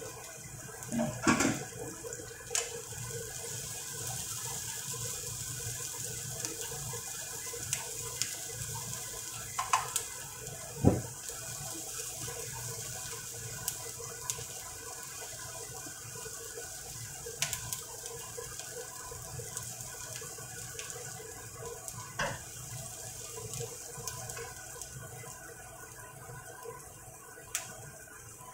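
Sliced shallots and chilli sizzling in oil in a frying pan, a steady sizzle that eases slightly near the end. A wooden spatula stirring them gives a few knocks and scrapes against the pan.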